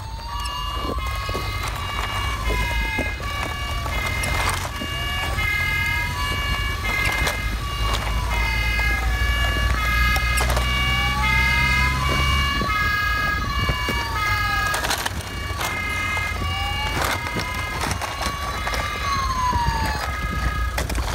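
Two toy electronic sirens sounding together: a wail that slowly rises and falls about every five seconds, over a faster stepped siren of short notes jumping between pitches. They come from the sound modules of toy fire and police vehicles.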